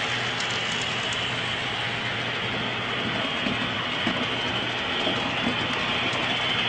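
HO-scale model trains running on the layout's track: a steady rolling noise with a low hum underneath.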